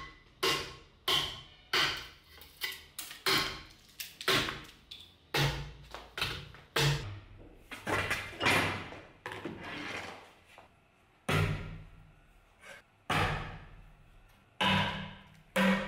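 Restored Kalashnikov bayonet knife chopping into an upright wooden stick, a string of sharp blows about one to two a second, each ringing briefly, with a short pause partway through. The chopping tests how firmly the new handle is mounted.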